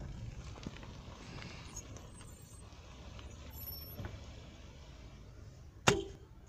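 Car engine and road rumble heard from inside the cabin, slowly fading as the car comes to the gate. A single sharp knock near the end is the loudest sound.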